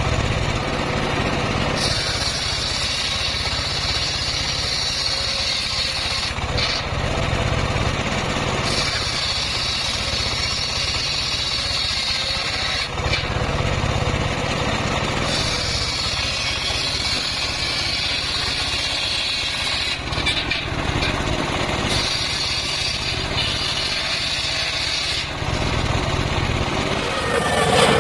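Homemade circular saw bench ripping mahogany planks: the blade's high cutting whine comes in four passes of about four seconds each, with short breaks between, over the steady drone of the machine running.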